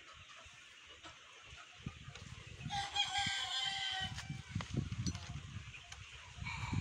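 A rooster crows: one long crow of about a second and a half in the middle, and another starting near the end.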